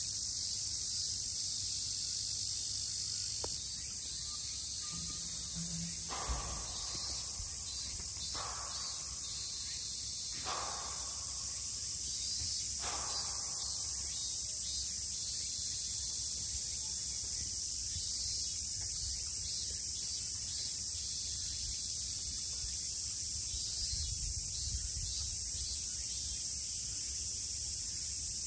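Steady high-pitched drone of a summer insect chorus, with four brief fainter sounds about two seconds apart in the middle.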